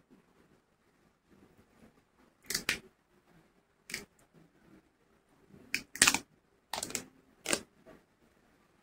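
Small blue plastic bottle cap and seal bitten and pried with the teeth: a handful of short, sharp cracking clicks, the loudest cluster about six seconds in.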